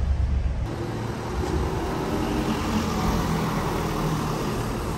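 City road traffic, with a minibus driving past close by: steady engine and tyre noise. For about the first half-second, the low rumble of riding inside a city bus, cut off abruptly.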